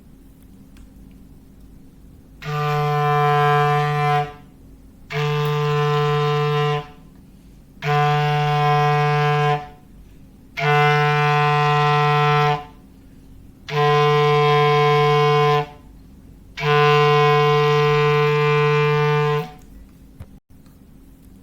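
A foghorn sounding six long blasts on one steady pitch, each about two seconds long with roughly a second of quiet between, the last blast the longest.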